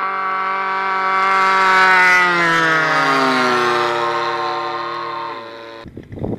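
Radio-controlled model airplane's motor and propeller whining steadily as it flies past, growing louder then fading with its pitch sliding gradually down. The sound cuts off suddenly near the end.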